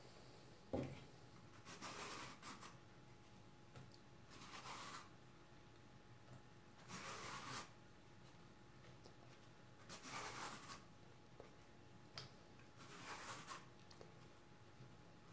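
Vegetable peeler shaving thin strips off a peeled courgette: five faint scraping strokes, a couple of seconds apart. There is a short soft knock about a second in.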